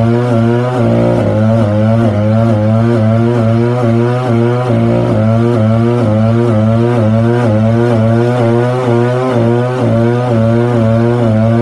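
Small walk-behind stump grinder's chainsaw-style petrol engine running at high revs under load as its cutting wheel grinds into a stump. The engine note holds steady with a slight, rhythmic waver in pitch as the wheel bites.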